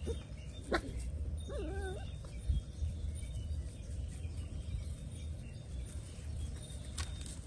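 A pet monkey gives one short, wavering call about a second and a half in, over a steady low background rumble, with a few sharp clicks and a thump.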